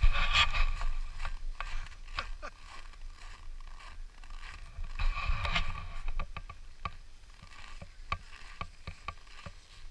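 Skis sliding and scraping over packed snow, swelling near the start and again about five seconds in, with a run of sharp clicks through the second half.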